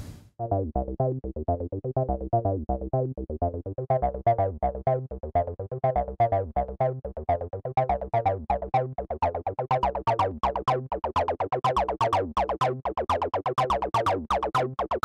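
Electronic background music with a steady synth beat; brighter, sharper percussion joins partway through and builds toward the end.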